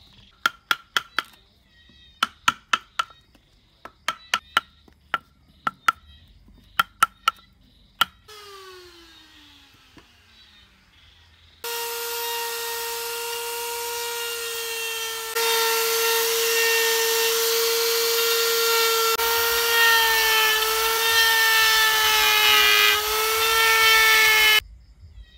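Handheld rotary carving tool with a burr running at a steady high whine as it grinds into root wood. The pitch wavers slightly under load, and the whine stops abruptly near the end. Before it come groups of two to four sharp clicks and a short falling whine.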